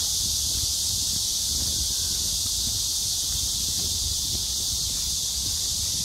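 A steady, high-pitched chorus of cicadas droning in the park trees, with a low rumble underneath.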